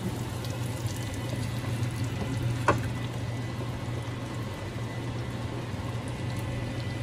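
Onions and garlic sizzling in melted butter in a frying pan, over the steady hum of an over-the-range microwave's vent fan. One sharp tap comes a little under three seconds in.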